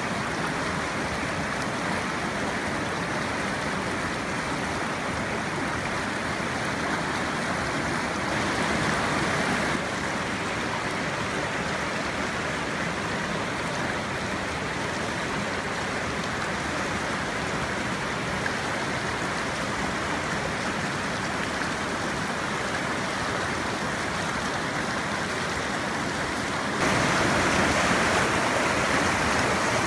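Stream water rushing over rocks in a shallow riffle, a steady, even rush that steps up louder briefly about eight seconds in and again near the end, where the water breaks white over the rocks.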